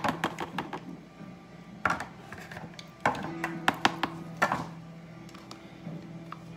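Silicone spatula scraping and tapping against a juicer's metal strainer basket packed with wet pulp. There is a quick run of scrapes and taps in the first second, a single one near two seconds, and another cluster from about three to four and a half seconds in.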